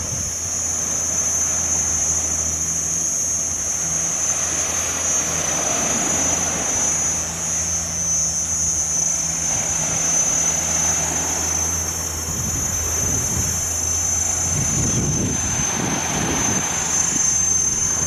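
Steady low engine drone under a constant high-pitched whine and a wash of outdoor noise; the drone stops about twelve seconds in, leaving a rougher, uneven wash.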